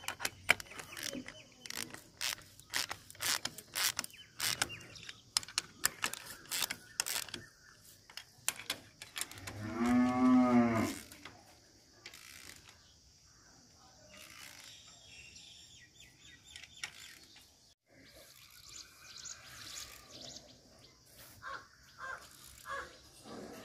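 Sharp metallic clicks of a socket spanner turning the anchor bolt nuts on a steel handrail base plate. About ten seconds in comes one long drawn-out call, the loudest sound, followed by fainter scattered taps.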